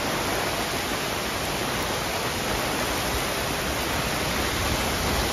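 Torrential rain with muddy floodwater rushing down the road and along the roadside gutter: a steady, even hiss of falling and running water.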